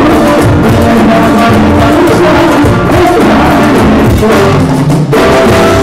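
Live band playing loudly, with congas, timbales and drum kit over acoustic guitar.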